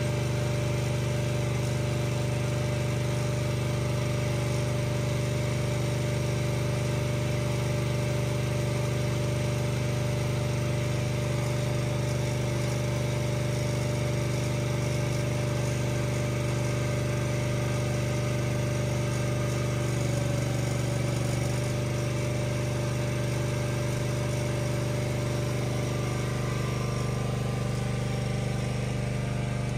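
Engine of a mobile calf milk feeder running steadily, a constant low hum.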